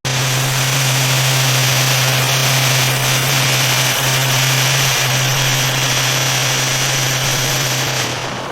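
A machine running steadily: a constant low hum under a strong even hiss, stopping shortly before the end.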